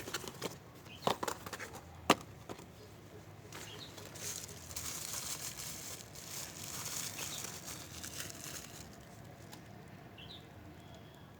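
Packaging being handled and unwrapped: a few sharp clicks and taps in the first couple of seconds, then a long stretch of rustling and crinkling wrapping that fades near the end.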